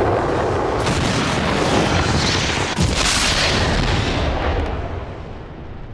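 Loud rumbling whoosh, a transition sound effect. It swells to a bright rush about two to three seconds in, then fades away near the end.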